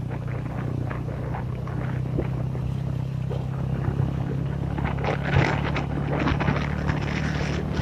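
Motorbike engine running steadily under way, a low even hum, with clicking and rattling growing busier from about halfway through.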